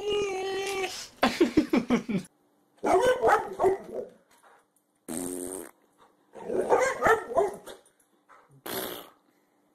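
A dog whines for about a second. Then a boxer barks and growls in four short bursts, mouth open wide, with short silences between them.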